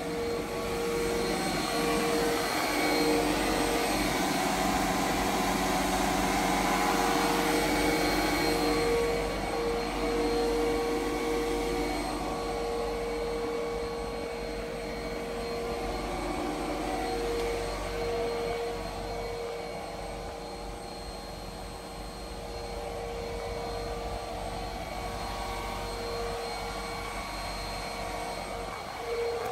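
A motor-driven blower running steadily, with a constant hum over a rushing of air, louder for the first nine seconds or so and then a little quieter.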